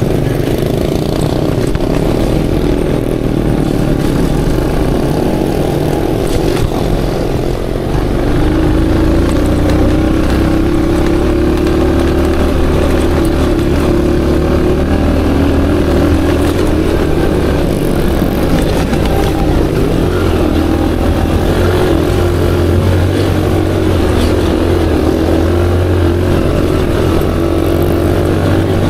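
Aveta Ranger Max cub-style motorcycle engine running steadily under load while being ridden, its note wavering a little with the throttle. It gets louder about eight seconds in and holds there.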